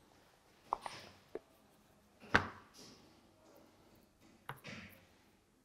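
A few light metallic clicks and taps from handling a piston's connecting rod and its bearing shell while the piston sits in a ring compressor, with the sharpest click a little over two seconds in and a quick cluster near the end.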